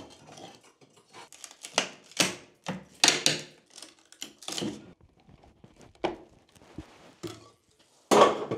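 Claw hammer knocking and prising at the nailed timber of a ceiling loft hatch frame: about eight irregular sharp knocks and scrapes of metal on wood, the loudest near the end.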